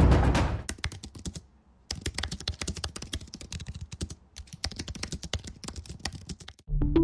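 Fast typing on a computer keyboard: rapid key clicks in a dense run, broken by two short pauses. Music fades out in the first second, and new music begins just before the end.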